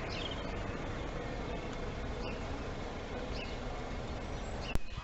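A few faint, short bird chirps over a steady rushing background noise, with a single sharp click just before the end.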